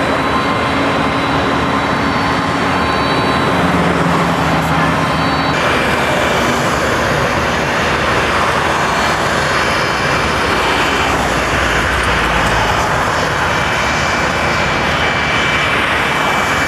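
Loud, steady jet roar from a Boeing 747 taking off, mixed with road traffic.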